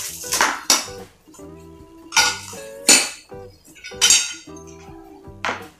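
Aluminium tube sections of a Hustler G7 antenna clinking against each other as they are handled, about six sharp metallic clinks, over background music with held tones.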